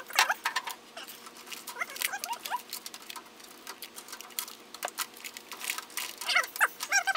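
Computer and power cables rattling and clicking against each other as a tangle is pulled apart by hand, with a few groups of short squeaky chirps.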